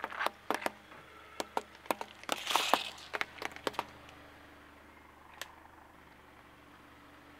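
A car tyre rolling over a large green gourd and crushing it: a quick run of sharp cracks and crunches as the rind splits, thickest about two and a half seconds in. The cracking stops about four seconds in, leaving only a single click later on.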